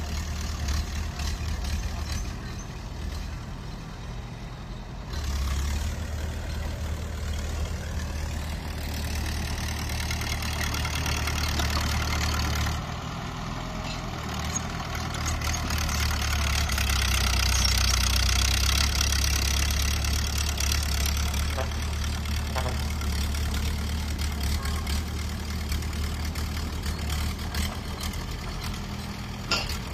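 Bulldozer's diesel engine running steadily as it works, a deep low hum with a rattly upper layer; the sound shifts abruptly twice and grows louder for a few seconds past the middle.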